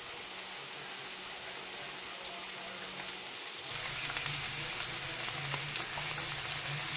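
Food sizzling in a hot frying pan, a steady hiss that gets louder with many small crackles and pops from about halfway through.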